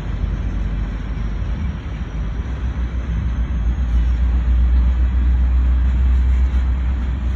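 Coal train's hopper cars rolling past close by: a steady low rumble of steel wheels on the rails that grows louder about halfway through.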